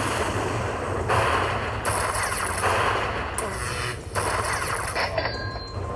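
A slot machine's electric-zap sound effects: a run of crackling zaps, about one every three-quarters of a second. Each zap is a lightning strike collecting a coin's value into the bonus win total.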